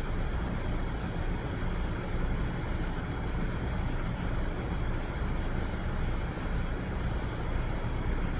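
Steady low rumble of background noise, with faint, irregular scratchy strokes of a charcoal stick and fingertips rubbing across drawing paper as the shading under a drawn nose is laid in and blended.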